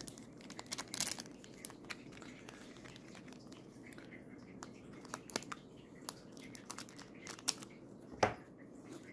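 Foil wrapper of a Pokémon Trick or Treat booster pack crinkling in the hands as it is handled, a string of short irregular crackles, the loudest just before the end.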